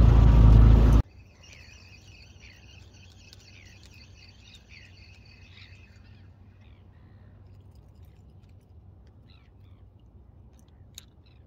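Boat's outboard motor running for about a second, then cutting off abruptly. Faint high chirping calls of birds follow over a low hum for several seconds, with a few light clicks near the end.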